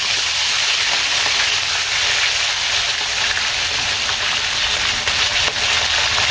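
Whole fish deep-frying in a wide pan of hot oil: a steady sizzle.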